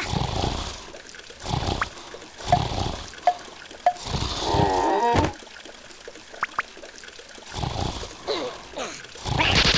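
Cartoon sound effects: liquid trickling and pouring, broken by several short low rumbling bursts. A brief wavering cartoon-creature vocal sound comes about halfway through.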